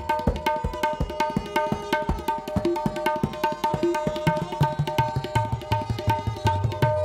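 Tabla played solo: rapid strokes on the right-hand dayan with its ringing tuned tone, and deep bass strokes on the left-hand bayan that grow more frequent from about halfway through.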